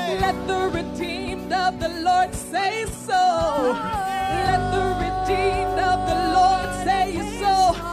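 Live gospel worship song: a woman's lead vocal over a band with electric guitar and drums, holding one long note through the second half.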